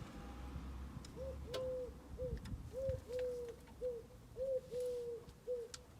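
A dove cooing over and over, alternating short and longer hooting notes, with a few faint clicks.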